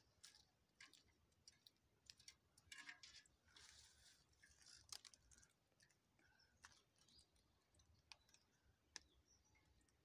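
Near silence, broken by faint scattered clicks and short wet rustles, with the busiest patch a few seconds in: hands working over a freshly scalded and plucked hen, pulling off the last feathers.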